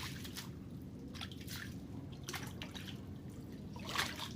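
Water dripping and trickling, with a few small splashes and a slightly louder one about four seconds in, over a steady low hum.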